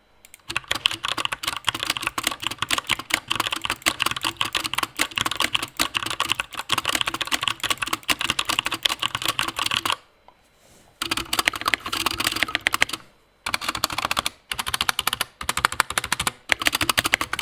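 Fast typing on an Anne Pro mechanical keyboard with stock Gateron Brown tactile switches: a dense stream of rapid keystroke clacks, pausing for about a second near the middle and briefly twice more later on.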